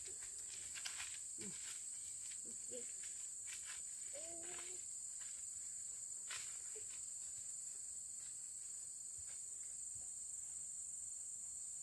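Steady high-pitched drone of insects in forest, with a few footsteps on a dirt path in the first half and some faint children's voices in the first few seconds.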